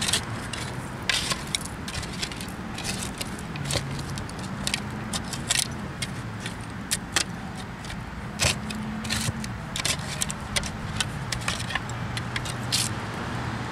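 Repeated sharp clinks, knocks and scrapes of digging in a privy pit full of old glass bottles and shards, over a low engine drone that rises and falls slightly.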